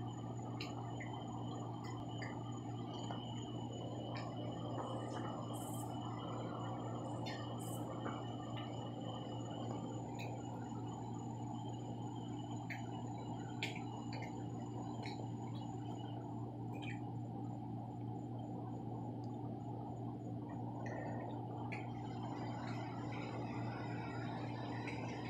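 Steady outdoor night background with no thunder: a constant low hum, faint high steady tones and scattered short chirps or clicks throughout.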